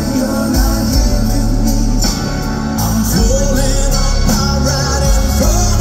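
Live rock band playing, with drums, bass and guitar, heard from the crowd. A male lead vocal comes in over it about three seconds in.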